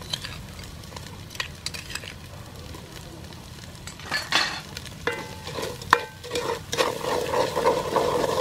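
Spice paste frying in oil in an aluminium pot, with a few sharp clinks of a spoon as salt and sugar go in. In the second half a wooden spoon stirs and scrapes the paste around the pot, louder and busier.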